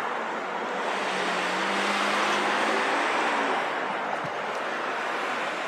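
Street traffic noise, a steady wash of cars on the road that swells a little about two seconds in as a vehicle goes by.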